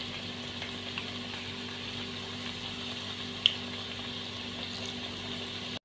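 Hot oil sizzling steadily as lachha pakora fritters deep-fry, with a low steady hum underneath and one short click about three and a half seconds in.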